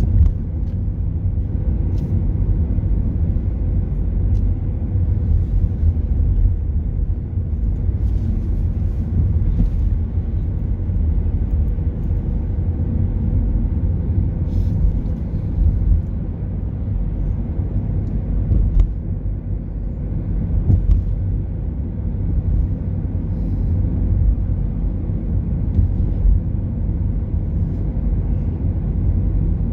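Steady low rumble of a car's engine and tyres heard from inside the cabin while driving along the road, with a faint steady hum and a few small clicks.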